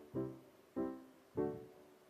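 Background music: a slow piano melody of single notes, struck about every two-thirds of a second, each ringing and fading away.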